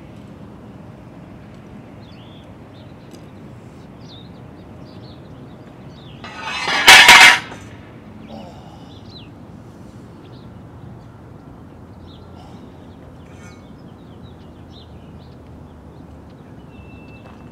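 A loud scraping clatter on concrete about seven seconds in, lasting about a second, as a skater moves objects at the skate spot. Faint bird chirps and a steady outdoor background are heard around it.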